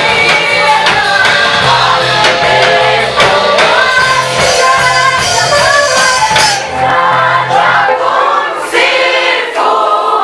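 Gospel praise-and-worship song: a choir singing over a band with a walking bass line and drums.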